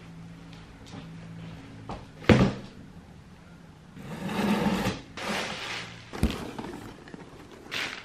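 A cardboard box being unpacked on a glass table: a thump about two seconds in, then scissors cutting the packing tape and cardboard scraping and rustling, with a couple of sharp clicks of handling near the end.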